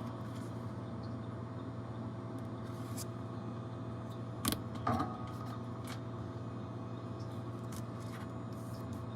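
Steady machine hum with a fixed higher whine under it, and two brief sharp taps about halfway through.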